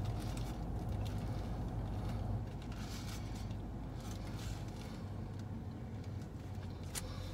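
Steady low hum of a car idling, heard inside the cabin, a little louder in the first two seconds. A few soft crinkles of a paper sandwich wrapper come over it.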